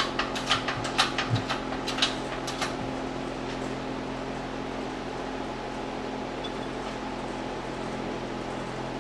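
Shop press being worked against a stuck U-joint in a driveshaft yoke: a run of sharp clicks, about three a second, that stops after about two and a half seconds, leaving a steady low hum. The U-joint does not come free; the press only bows the yoke.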